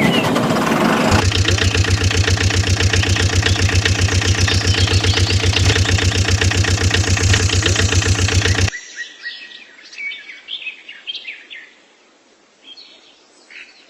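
An engine starts and runs with a fast, even chugging rhythm for about eight seconds, then stops abruptly. Birds chirp after it stops.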